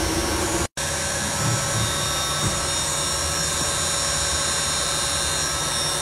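Steady mechanical noise of HVAC equipment running in a mechanical room, with a few faint steady tones. The sound cuts out for a moment under a second in.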